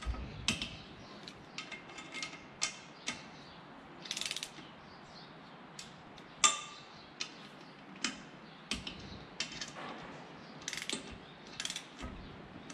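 Hand socket ratchet clicking in short irregular runs, with metal clinks, as the bolts of a propeller hub are snugged up. The sharpest single click comes about six and a half seconds in.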